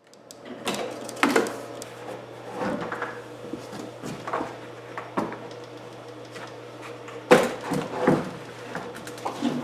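Irregular wooden knocks and clunks as plywood parts of the palette table are handled and set in place, the loudest about seven seconds in. A steady low hum runs underneath.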